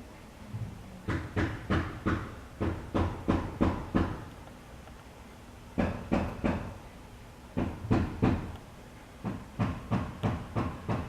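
Repeated short knocks, about three a second, in four runs with brief pauses between them.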